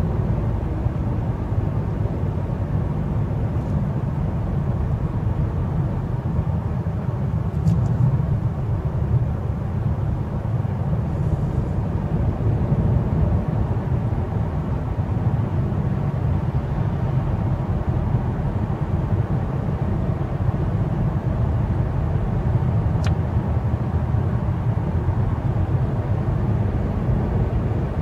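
Steady low rumble of a car driving along a paved road, tyre and engine noise heard from inside the cabin.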